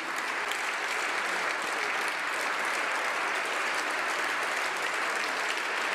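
A seated assembly of parliamentary deputies applauding steadily: many people clapping together without a break.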